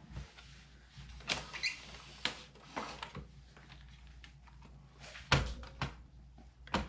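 Scattered light clicks and knocks as hands handle the opened Amiga 500 Plus: the keyboard is shifted and the ribbon cable pressed down over the board. The loudest knocks come about five and a half seconds in.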